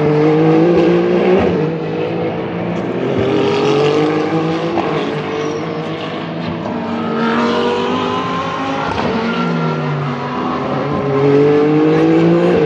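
Endurance race cars (Hypercars and GT3s) running at full throttle past the trackside, several in turn, each engine's pitch climbing as it accelerates and dropping back at the gear changes.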